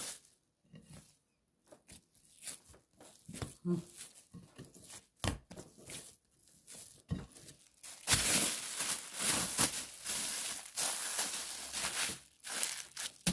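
Thin plastic bag crinkling as it is handled and wrapped around a ball of dough: a few faint rustles and soft clicks at first, then continuous crinkling from about eight seconds in.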